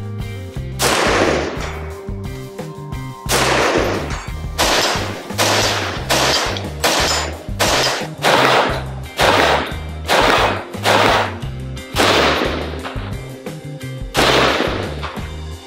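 Stag Arms Stag-10S .308 AR-10 semi-automatic rifle firing, about fifteen single shots at uneven intervals, each with a short fading ring-out. Background music with a steady bass line plays under the shots.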